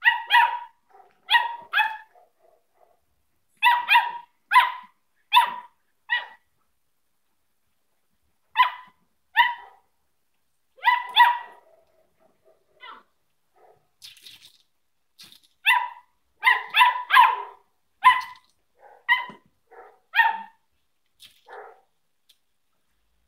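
Samoyed puppy barking repeatedly in short, high-pitched yaps, singly or in quick runs of two or three, with brief pauses between.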